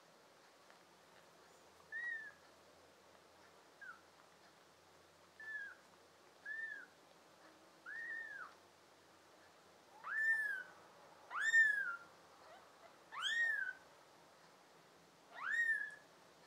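Newborn kitten mewing: about nine thin, high cries, each rising then falling in pitch, growing louder in the second half.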